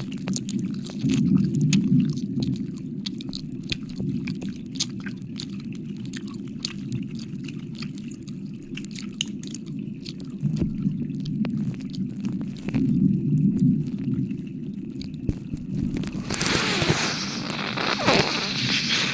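Wet mouth sounds right against the microphone: quick lip smacks and tongue clicks, many a second. About sixteen seconds in, a breathy blow into the microphone for a few seconds.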